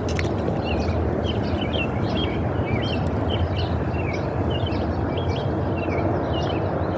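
Small birds chirping over and over, short quick chirps all through, above a steady, even rumble of outdoor background noise that is the loudest thing heard.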